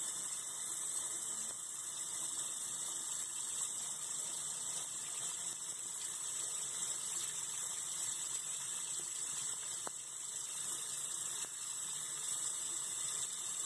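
Kitchen tap running steadily into a sink, the stream splashing over a cotton swab held under it.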